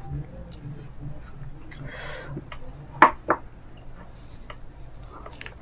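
Close-up eating sounds of a meal of fried chicken eaten by hand: soft chewing and small clicks, a brief rustle, and two sharp cracks about three seconds in, the loudest sounds.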